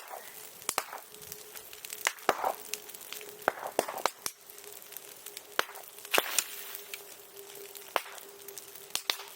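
Bonfire of branches and green bamboo crackling, with irregular sharp cracks and pops as the wood burns. A thin steady whistle runs underneath.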